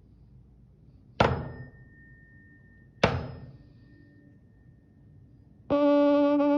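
A 288 Hz tuning fork struck twice, about two seconds apart: each strike is a sharp knock that leaves a faint hum at the fork's pitch and a thin, high clang tone fading away. Near the end a loud buzzing tone at the same low pitch, rich in overtones, sounds for about a second and cuts off suddenly, as the ringing fork is pressed onto the piezoelectric plate.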